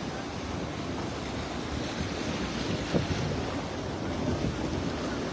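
Sea surf washing in over rocks at the water's edge, a steady rushing wash, with wind buffeting the microphone. A brief low thump about three seconds in.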